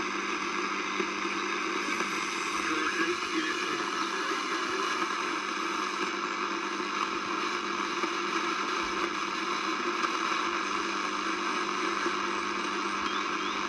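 Steady hiss of 80 m band noise from the loudspeaker of a wartime R109T valve receiver tuned to 3.615 MHz, with a faint low hum under it: no station is transmitting on the frequency between overs of the net.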